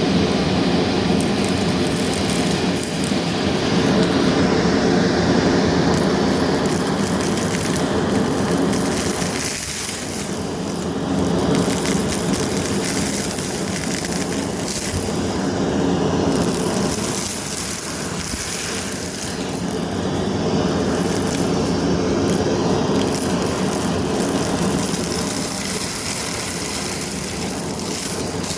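Vacmaster Captura vacuum cleaner running, a steady motor and suction noise that swells and dips every few seconds as it is pushed back and forth.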